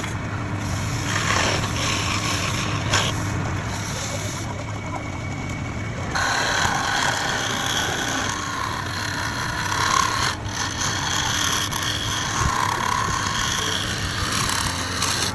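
Wood lathe motor running steadily while a turning tool scrapes and cuts the spinning wood. The cutting gets louder about six seconds in and breaks off briefly around ten seconds.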